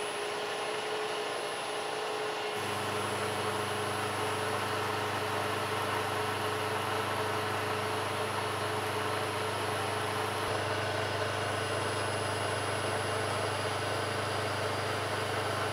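Machine tool running steadily while taking a chamfer pass on the scale guard, with a constant whine. A deeper hum joins about two and a half seconds in.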